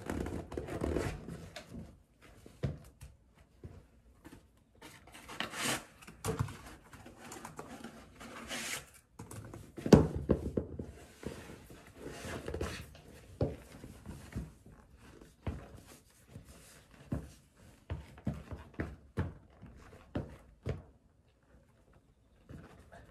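Tall boots being pulled on and stepped into: rubbing and scuffing of the boot shafts against trouser fabric, with irregular knocks of the heels and soles on the floor, the loudest about ten seconds in.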